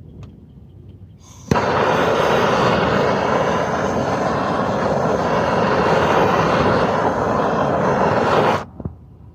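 MAP gas torch lit with a click about a second in, burning with a steady hiss for about seven seconds, then shut off suddenly.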